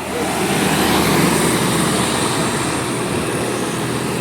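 A large road vehicle, most likely a bus, passing close by: engine and tyre rumble that comes up sharply at the start and stays loud and steady, with no horn tune.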